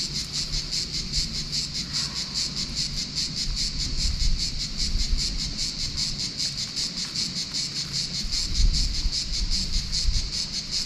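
Cicadas singing in chorus: a steady, high, rapidly pulsing buzz.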